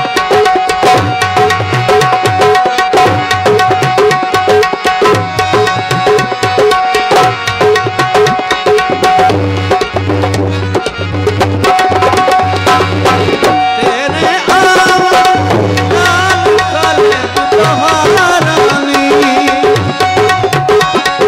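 Instrumental break in a Punjabi folk song: a harmonium holds a steady drone and melody while hand drums keep up a fast, dense rhythm with deep bass strokes.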